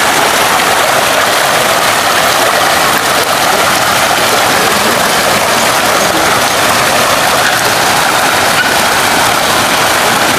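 Steady rush of running water: spouts pouring into a stone bathing pool and the shallow stream, a loud even hiss.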